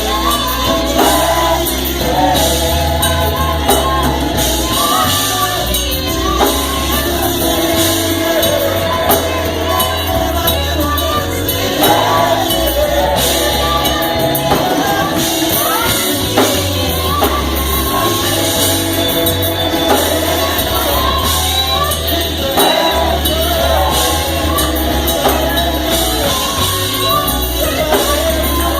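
Gospel choir singing with band accompaniment: a steady bass line under sung melody lines, with percussion and tambourine.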